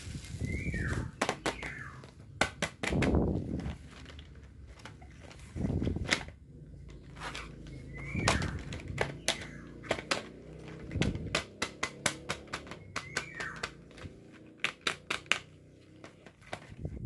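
Cardboard boxes of pencils being handled and laid on a table: a run of sharp clicks and knocks mixed with duller sliding thuds. A bird gives a short falling chirp three times in the background, about five seconds apart.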